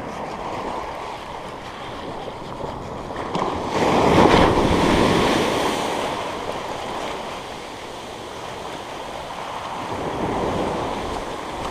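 Ocean surf washing up the beach, with a wave breaking and rushing in about four seconds in, the loudest moment, then easing off. Wind buffets the microphone.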